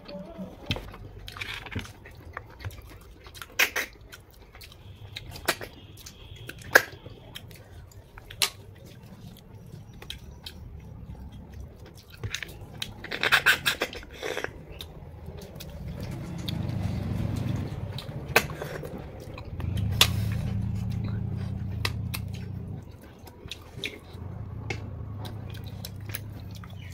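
Snails being sucked out of their shells and chewed: short sharp slurps and smacks at uneven intervals, with a longer burst of slurping about halfway through. A low steady hum comes in during the second half.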